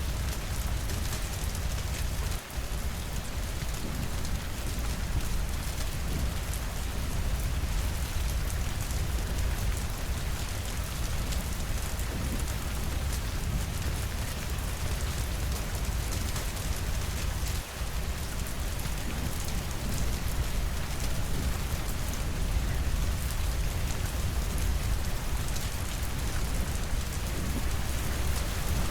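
Steady rainfall against windows, an even hiss over a deep low rumble, with fine pattering of drops. The sound drops out briefly twice.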